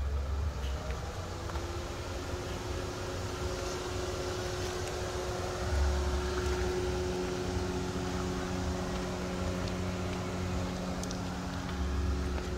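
A steady mechanical hum of several held low tones, starting about a second in, over a low rumble of wind on the microphone.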